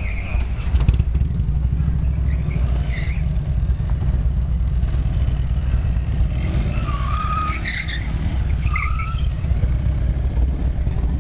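Motorcycle-and-sidecar rig running at low speed, its engine giving a steady low rumble as it circles and pulls away. A few short higher-pitched sounds come in about two-thirds of the way through.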